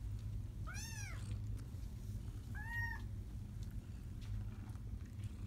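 Three-week-old kittens mewing: two short, high mews, each rising and falling in pitch, about a second in and again near three seconds.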